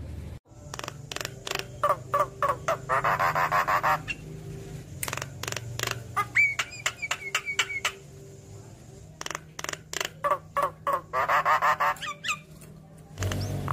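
Javan myna calling: a run of sharp clicking notes broken by two dense, harsh chattering bursts, one a few seconds in and one near the end, with a short series of whistled notes in the middle.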